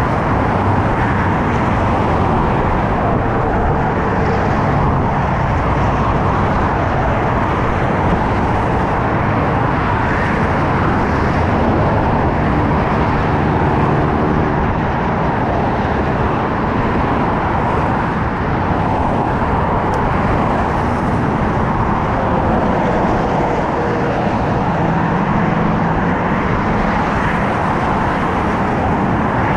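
Loud, steady noise of freeway traffic, cars and trucks passing close by on the interstate.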